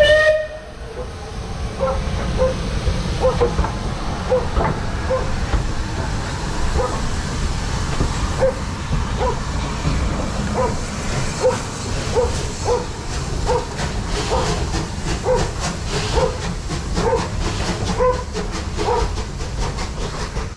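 Steam locomotive pulling out with a train: a short whistle blast at the start, then steady steam hiss with a regular beat of knocks and clicks from the engine and wheels as the tender and carriages roll past.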